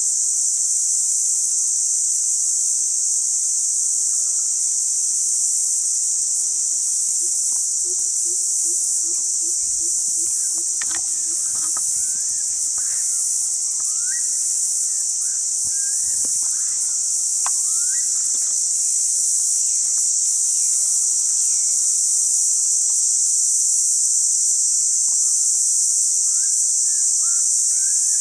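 Loud, steady high-pitched drone of insects in tropical bush. A few faint bird chirps come through, mostly in the middle and near the end.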